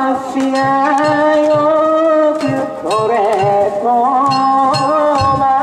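Danjiri festival music: a steady beat of drum and metal gong strikes, about three a second, under a long-drawn sung line that holds each note and slides between them.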